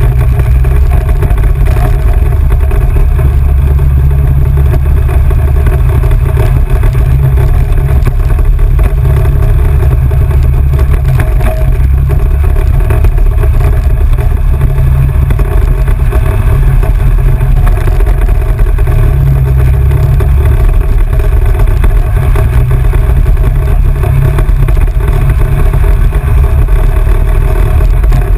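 Off-road vehicle's engine running steadily under way on a dirt road, with heavy wind rumble on the microphone throughout.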